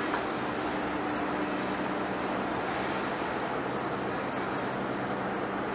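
Heavy-duty lathe running as it turns a large forged steel rotor shaft: a steady machine noise with a low hum.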